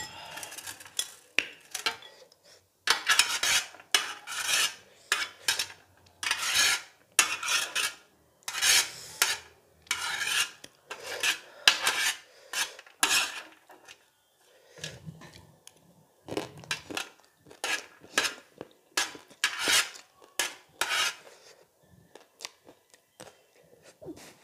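Metal spoon scraping and clinking against a glass bowl of pani-puri water, in many quick irregular strokes, with quieter gaps now and then.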